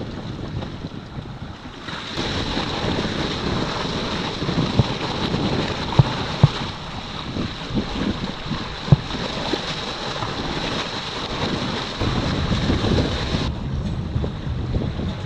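Wind buffeting the microphone over the rush of sea water around a small sailboat under way, with a few sharp knocks. The noise jumps up abruptly about two seconds in and drops again near the end.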